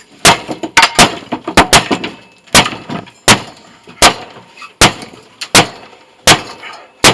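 Hammer striking a stuck metal part of a scrapped motor, about a dozen sharp, ringing blows, quick and uneven at first and then steady at about one every three-quarters of a second, trying to knock loose a piece that won't come out.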